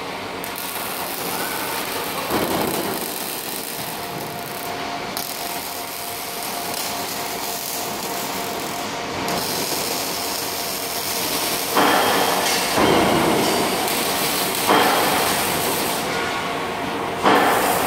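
Robotic arc-welding cell running: a steady noisy crackle and machine hum, with four sudden louder bursts of noise in the second half, each fading over about a second.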